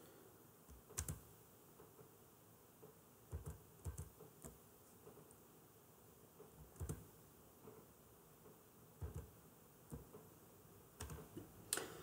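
Near silence broken by about ten faint, short clicks of a computer keyboard and mouse, spread irregularly, with a few close together near the end.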